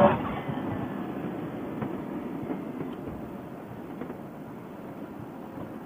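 Steady rush of wind and road noise on a riding motorcyclist's helmet microphone, with the motorcycle's engine faint underneath, slowly getting a little quieter.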